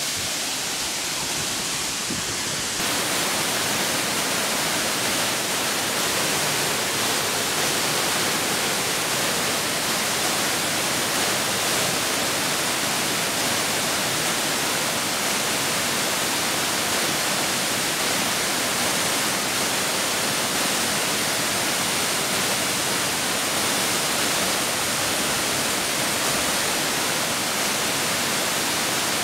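A waterfall: water pouring and splashing onto rock in a steady, even rush. It gets slightly louder about three seconds in.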